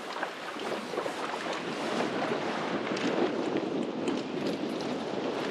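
Strong wind buffeting the microphone with choppy water against a fishing boat: a steady rushing noise that grows a little louder after about a second.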